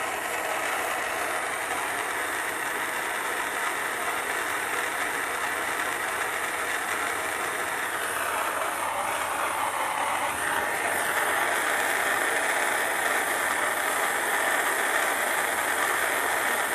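Soldering torch flame running with a steady hiss while it heats a copper pipe fitting. It gets somewhat louder about ten seconds in.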